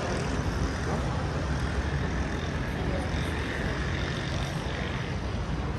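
Steady rumble of motor vehicle traffic.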